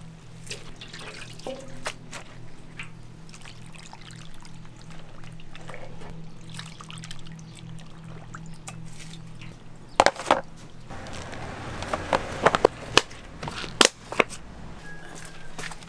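Wet, squishy sounds of gloved hands mixing kimchi in a plastic tub, with seasoning liquid poured over it from a steel ladle. From about ten seconds in, sharp plastic clicks and knocks come as a lid is set on the tub and its handles are snapped down.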